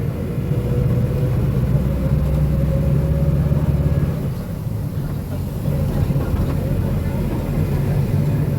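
Diesel engine of a Marcopolo Sênior Midi bus on an Agrale MA 15.0 chassis running, with a faint whine rising slightly in pitch; about four seconds in the engine eases off briefly, then pulls again.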